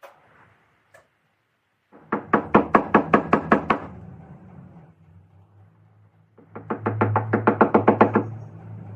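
Two quick runs of rapid knocks, about six a second, each under two seconds long, over a low steady hum.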